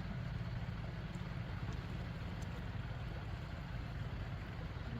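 A small engine running steadily: an even, unchanging low hum.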